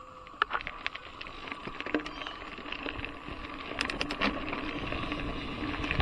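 Trek Fuel EX 7 mountain bike being ridden over a dirt singletrack: sharp clicks and rattles of the bike jolting over the ground begin about half a second in, over a rolling rumble that grows as it picks up speed.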